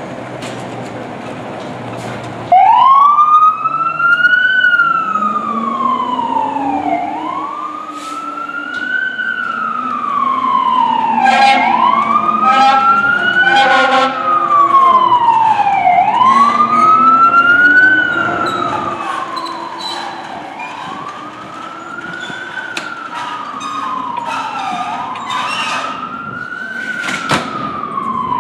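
Fire engine's electronic siren switching on suddenly about two and a half seconds in, then wailing, rising and falling about every four and a half seconds. Short horn blasts sound around the middle, and the wail grows fainter in the last third as the engine moves away.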